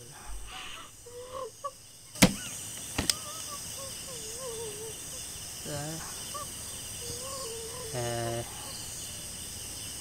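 Night ambience of crickets chirping steadily, with wavering calls over it, and two sharp clicks about two and three seconds in.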